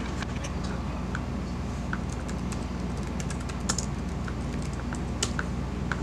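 Typing on a laptop keyboard: irregular key clicks, with a louder clack about midway and another near the end, over a steady low hum.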